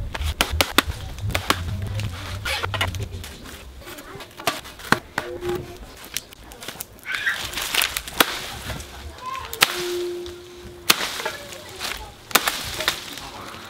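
Irregular series of sharp chopping strikes from a blade hacking into a felled coconut palm's trunk and frond bases.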